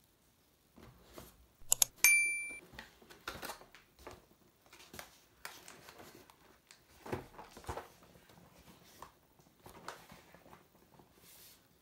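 Hands handling and turning over a shrink-wrapped cardboard box, with irregular rubbing, crinkling and light knocks. About two seconds in there are two sharp clicks, then a short, bright ringing tone that is the loudest sound and fades within about half a second.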